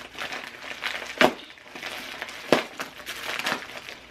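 A parcel's packaging being worked open by hand: rustling and crinkling, with two sharp snaps about a second and a bit apart.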